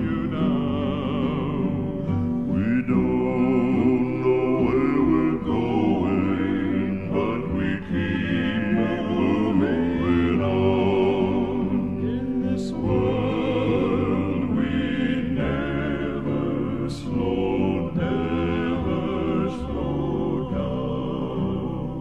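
A male gospel vocal quartet singing in close harmony, holding long notes with vibrato and no clear words.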